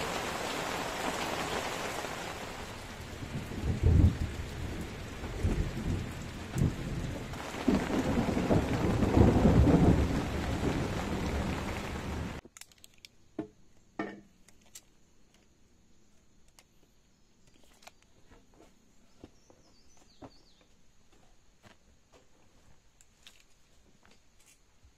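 Steady rain with low rumbles of thunder, twice swelling louder. About halfway through it cuts off abruptly to near quiet with faint scattered ticks.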